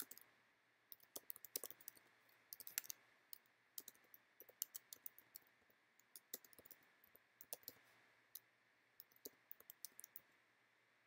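Quiet typing on a computer keyboard: irregular runs of keystroke clicks that stop about ten seconds in.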